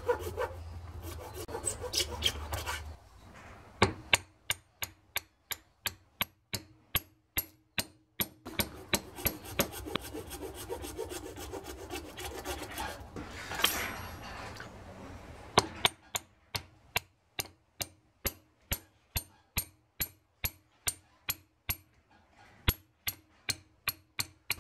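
Bare hacksaw blade, held in the fingers without a frame, sawing a small pittosporum twig in short, quick strokes, about two to three a second. The hard green wood makes a dry rasp with each stroke.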